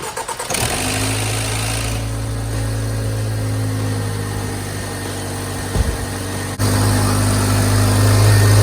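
2014 Range Rover Evoque's engine starting about a second in and then idling steadily, with a sudden step louder about six and a half seconds in.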